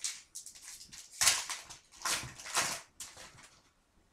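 Yu-Gi-Oh trading cards being slid one at a time off the top of a held stack: a quick series of about five papery swishes.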